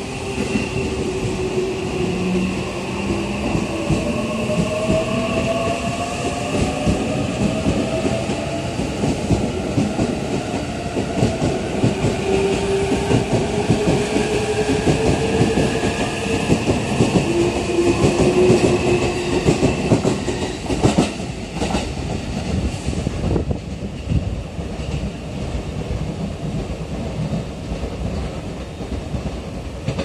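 JR East E657 series electric limited express pulling out of the station and accelerating past, its traction motors whining in several rising tones over the rumble and clatter of wheels on the rails. The sound is loudest about eighteen to twenty seconds in, then drops away after about twenty-three seconds as the last cars pass.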